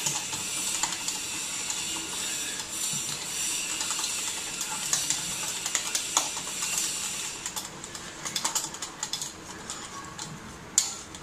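Wire whisk beating thick besan (gram-flour) batter in a steel bowl: fast, continuous scraping and clinking of the wires against the metal. After about seven seconds the strokes thin out into separate ticks, with one sharper clink near the end.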